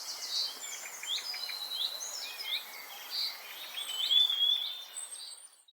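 Songbirds singing: a run of varied whistled notes, chirps and short trills over a faint background hiss, fading out near the end.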